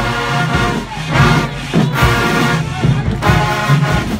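A marching band playing: brass horns blast loud phrases about once a second over drums.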